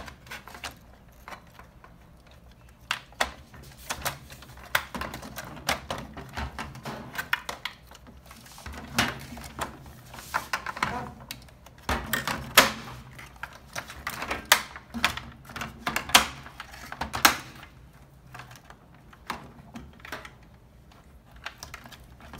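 Irregular plastic clicks and knocks as a replacement Whirlpool top-load washer control board in its plastic housing is pressed and snapped into its locking tabs on the metal console, with a run of sharper clicks through the middle.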